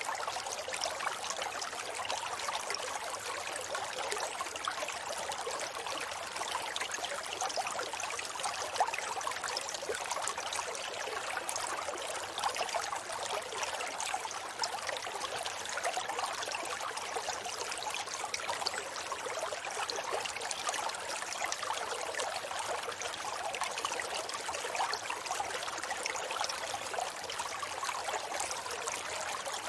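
Forest stream flowing steadily over rocks, a continuous rushing, babbling water sound.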